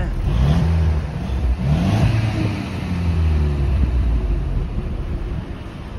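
Exhaust of a Mercedes-Benz W205 C200's turbocharged four-cylinder petrol engine, heard at the tailpipe as the engine is revved up and back down a few times, with a deep steady drone between the blips. The revving follows a turbocharger replacement and is blowing leftover water and oil out of the muffler.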